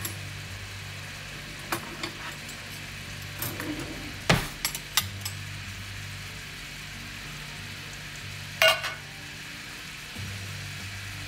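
Chicken francaise simmering in butter-lemon sauce in a cast iron skillet, a steady sizzle, with a few sharp knocks and clinks; the loudest knock comes about four seconds in and a clink near the end.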